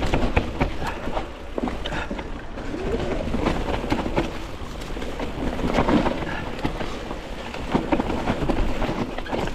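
Mountain bike riding down a rough dirt trail: tyres on soil and roots, with frequent rattles and knocks from the bike over the bumps, and a low rumble of wind on the camera microphone.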